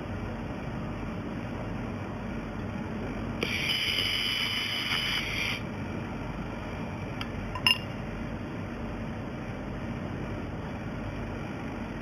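Welding machine running with a steady hum. About three and a half seconds in, a high-pitched tone sounds for about two seconds, and a single sharp clink comes near eight seconds.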